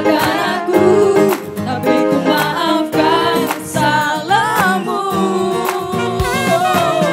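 Music: a singing voice over a plucked-string accompaniment, with the voice coming in clearly about halfway through.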